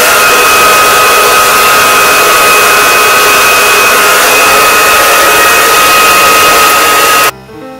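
T3 blow dryer running on its medium setting: a loud, steady rush of air with a steady high-pitched motor whine, cut off suddenly about seven seconds in. Piano music follows.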